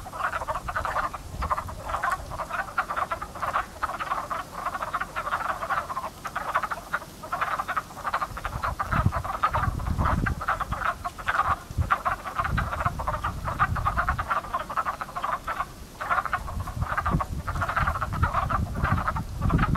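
A breeding chorus of many wood frogs, clucking croaks overlapping in a dense, unbroken mass, easily taken for crows calling. A low rumble comes and goes beneath it.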